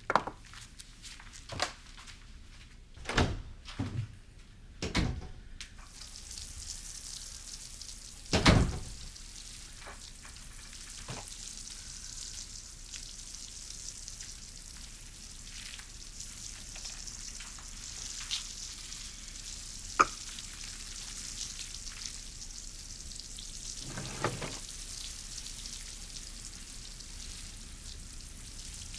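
Kitchen sounds: a few separate thunks like a knife on a cutting board, then from about six seconds a steady sizzle of food frying in a pan. One louder knock and a few clicks sound over the sizzle.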